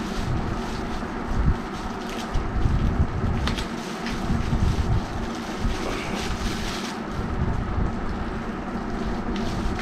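Clear plastic wrapping on a fishing rod crinkling and rustling as the rod is handled, over an uneven low rumble.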